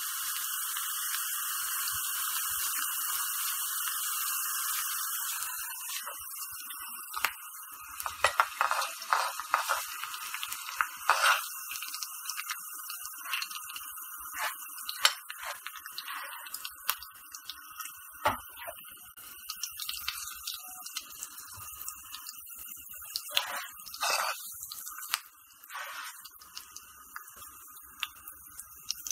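Hot tempering oil with mustard seeds, sesame seeds, green chillies and curry leaves sizzling in a small steel pan, a steady hiss that dies down after about six seconds. Then scattered clicks and scrapes of a steel spoon against the pan and a ceramic plate as the tempering is spooned over khandvi rolls.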